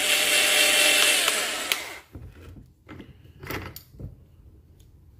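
NAVAC NEF6Li cordless flaring tool's motor running in reverse, backing the flaring cone out of the finished flare. It stops about two seconds in, and a few clicks and knocks follow as the tool and its clamp are handled.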